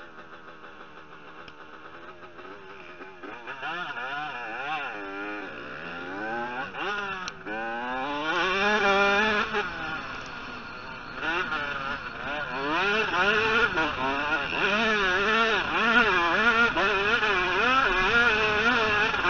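Motocross bike engine revving hard and easing off repeatedly, its pitch rising and falling as it runs through the gears. Faint at first, much louder from about three seconds in.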